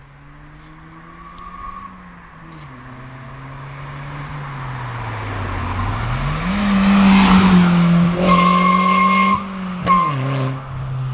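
Ford Fiesta Zetec S with a custom straight-pipe exhaust accelerating under throttle, its engine note rising and falling in pitch and growing louder. About eight seconds in, a high steady whistle comes in for about a second and briefly again near the end. It is the exhaust whistling under load, which the owner traced to the inside of the pipe not being cut to a true circle.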